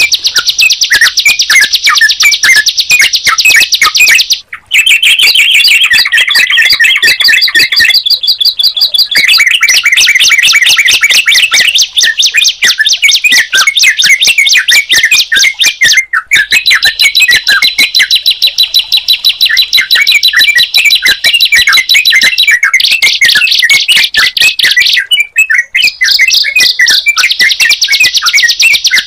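Recorded songs of the ciblek (a prinia) and the trucukan (yellow-vented bulbul): a loud, fast, unbroken string of high chirps and trills whose pattern changes every few seconds, with a few brief breaks where the recording is cut.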